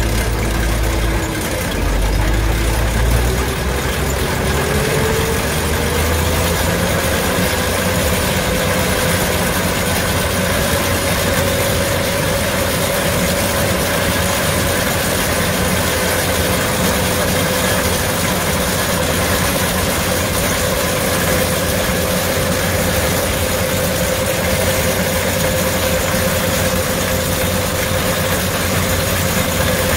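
Gleaner R75 combine running with its threshing and rear straw-chopper drives engaged: a broad mechanical rush, with a whine that climbs in pitch for several seconds as the machine spins up to speed and then holds steady.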